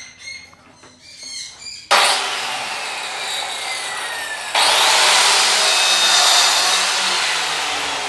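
Handheld electric circular saw starting suddenly about two seconds in, then cutting through a wooden board, louder from about halfway through as the blade bites into the wood.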